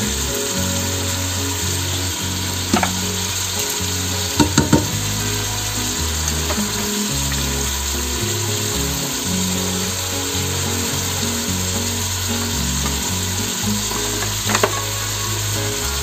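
Tomatoes, onions and shallots sizzling steadily as they sauté in a pot, with a few sharp taps about 3 and 4.5 seconds in and again near the end.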